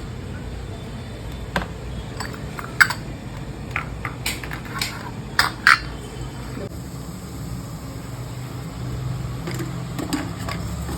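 Kitchenware clinking and knocking: a series of sharp clinks and taps through the first half, two of them louder, then a steady low hum with only a few more taps.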